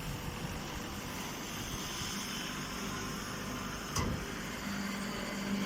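Steady machine noise with a sharp click about four seconds in, followed by a steady low hum.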